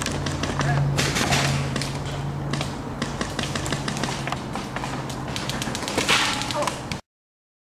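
Rustling handling noise and scattered knocks and taps from a camera swung about during a paintball game, over a steady low hum. The sound cuts off abruptly about seven seconds in.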